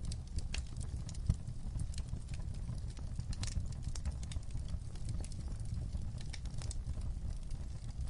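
Fire crackling: irregular sharp pops and snaps over a steady low rumble of flames, with one louder pop about a second in.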